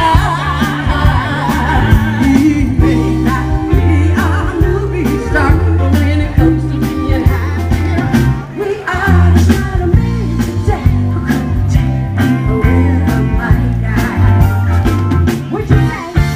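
Live band playing a Motown song, with women singing over a walking bass line and drums.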